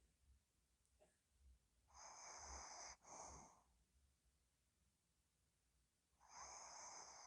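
Pomeranian breathing in its sleep with soft snores. Twice, about four seconds apart, comes a long noisy breath followed by a short one, each with a thin high whistle.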